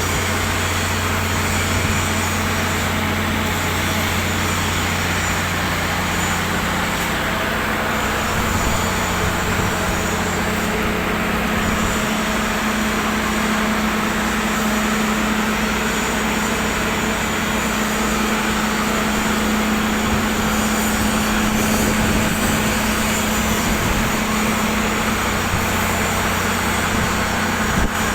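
Steady hum of a running vehicle engine under an even hiss, with no clear change throughout.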